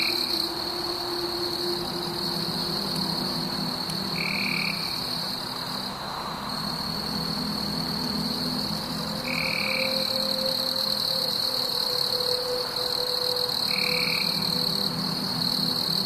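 Steady, high-pitched chorus of calling animals, with a short, lower call repeating about every four to five seconds.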